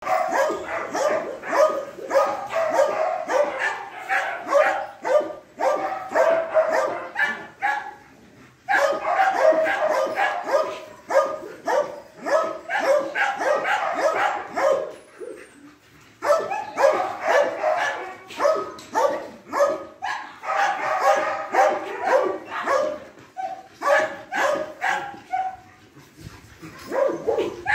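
Dogs barking rapidly and almost without a break, in long bouts with short lulls about 8 and 16 seconds in, the barks growing sparser near the end.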